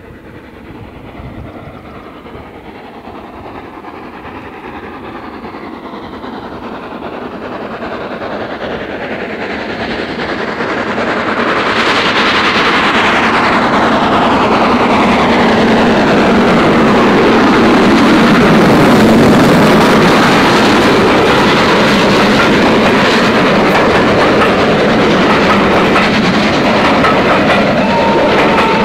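LSWR S15 4-6-0 steam locomotive working a train, its exhaust growing steadily louder as it approaches. From about halfway in it passes close, and the coaches' wheels clatter over the rail joints.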